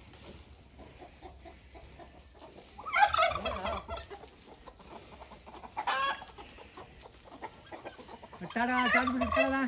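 Country chickens and roosters calling in a free-range flock. There is a loud burst of squawking about three seconds in, a shorter call around six seconds, and a long drawn-out call near the end.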